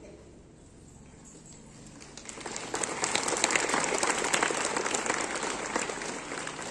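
Audience applauding: clapping starts about two seconds in, swells, then slowly tapers off.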